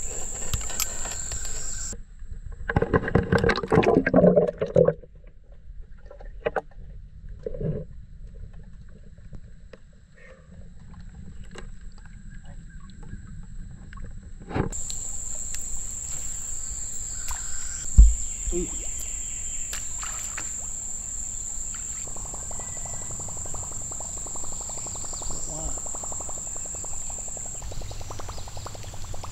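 Insects buzzing in a steady high whine, with clattering knocks from handling a bass on a plastic measuring board in a kayak about two to five seconds in. Later comes a single low thump against the kayak.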